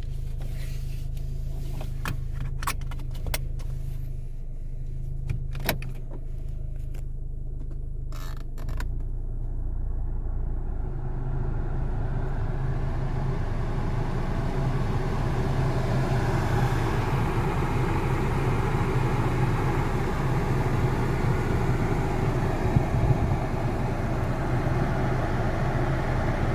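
Nissan Sentra SE-R (2007, CVT automatic) running steadily at idle with a few sharp clicks. After about nine seconds the car moves off, and engine and road noise build up steadily as it gathers speed.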